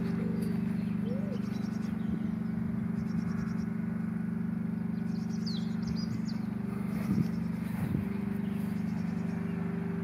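Steady low drone of an idling engine, with small birds chirping now and then.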